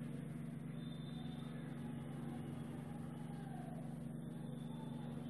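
A steady low hum with faint hiss, with no distinct events.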